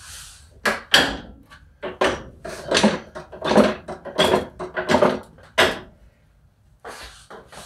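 Manual transmission being shifted on its jack into line with the engine: a run of irregular metal-and-wood knocks and clunks, about two a second, with a short lull near the end.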